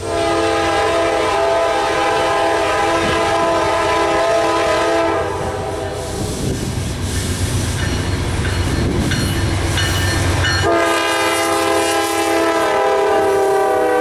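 A Norfolk Southern GE Dash 9-40CW locomotive's air horn blows a long chord blast of about five seconds. The deep rumble of the locomotives passing close by follows. A second long horn blast starts about ten and a half seconds in and is still sounding at the end.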